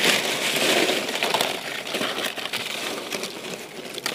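Dry fallen leaves crackling and rustling as they are scooped up by hand and spread as mulch around the base of a sapling. Loudest in the first second or so, then thinning to lighter crackles.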